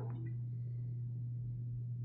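Steady low electrical hum with no other sound over it, the kind of mains hum carried in a broadcast receiver's recording.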